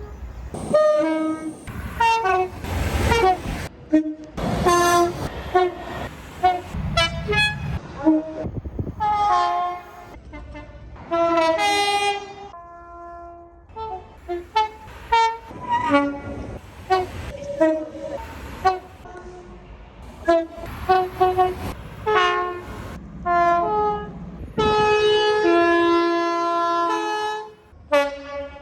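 Train horns: a quick run of short blasts from different horns, each a chord of several notes, cut off abruptly one after another. Near the end one horn holds a longer, steady chord.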